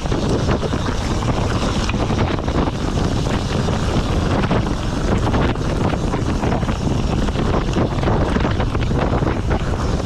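Mountain bike riding fast down a rough dirt and stone singletrack: wind buffeting the rider's camera microphone, over a constant rattle and clatter of the bike and its tyres on the loose rocks.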